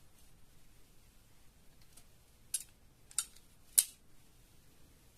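Three short, sharp metallic clicks from an automatic wire stripper being handled, the third the loudest, over quiet room tone.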